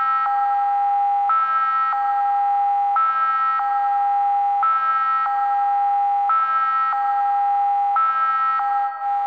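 Electronic synthesizer drone looping between two held chords, one lasting about a second and the other about two-thirds of a second, repeating steadily with a constant middle tone underneath.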